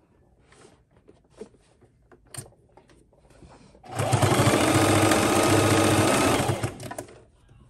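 A Singer sewing machine runs once for about three seconds, starting about four seconds in and stopping near the end, stitching through the folded fabric wrapped around the middle of a bow tie. Before it, faint rustles and small clicks of fabric being handled at the machine.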